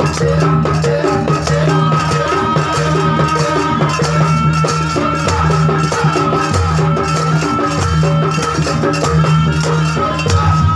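Continuous Indonesian folk dance music from an ensemble: a steady bass line, a repeating melodic figure, a long-held high tone and a busy drum and rattle rhythm.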